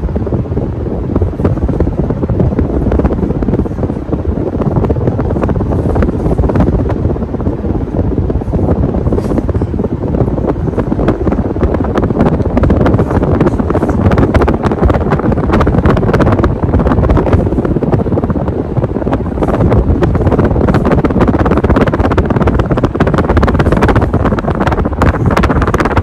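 Wind buffeting the microphone: a loud, continuous rumbling rush that swells and dips unevenly, with frequent crackles.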